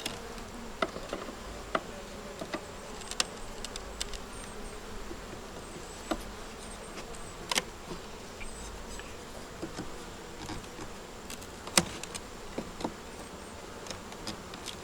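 Honey bees buzzing steadily around an open hive, with scattered sharp clicks and knocks of wooden frames and hive tool being worked, the loudest about halfway through and again near the end.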